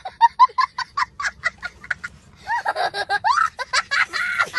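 A young child laughing hard. It starts as a quick run of short, high laughs, about five a second, then turns to longer laughs that rise and fall in pitch from about two and a half seconds in.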